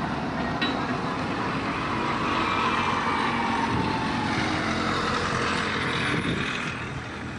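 Street traffic: a road vehicle passes by, its noise swelling from about two seconds in with a slowly falling pitch, then fading away near the end.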